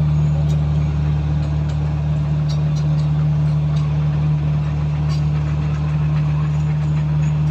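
Komatsu bulldozer's diesel engine running at a steady speed, a constant low drone with scattered light clicks.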